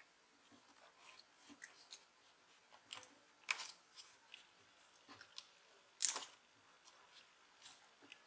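Hands handling a laptop's internal plastic parts and cables: a few faint scattered clicks and scrapes, the sharpest about three and a half seconds in and about six seconds in.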